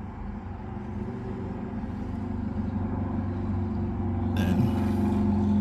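A steady low mechanical hum, like an engine running, growing gradually louder.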